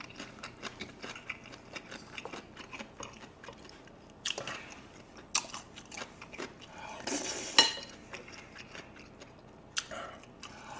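Close-miked chewing and wet mouth sounds of a person eating spoonfuls of rice soaked in beef-bone soup, with small spoon clicks throughout and a few louder noisy sounds, the longest just after the middle.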